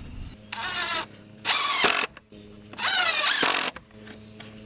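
Power drill running in three short bursts, the second and third longest and loudest, its pitch falling away as the trigger is let go.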